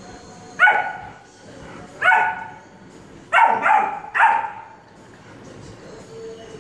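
A dog barking: five sharp, fairly high-pitched barks, a single one about half a second in, another about two seconds in, then a quick run of three.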